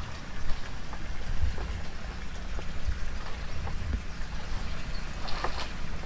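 Uneven low rumble on the microphone, with a few faint clicks and a brief rustle near the end.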